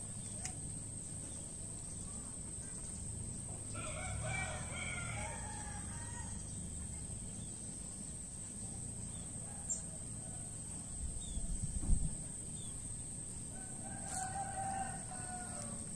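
A rooster crowing twice: one drawn-out crow about four seconds in and another near the end. A short run of low thumps comes a couple of seconds before the second crow.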